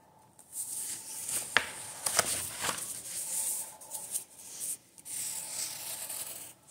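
Pencil scratching across paper in long drawing strokes, with a brief pause near the middle and a few sharp taps early on.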